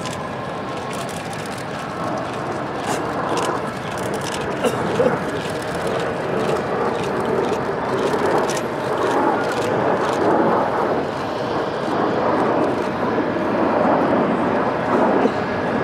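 Jet noise from a formation of Blue Impulse Kawasaki T-4 jet trainers making a low pass: a steady rushing sound that swells from about two seconds in and stays loud.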